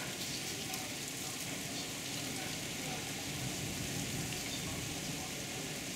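Heavy rain pouring down steadily in a thunderstorm, heard from indoors through a closed window.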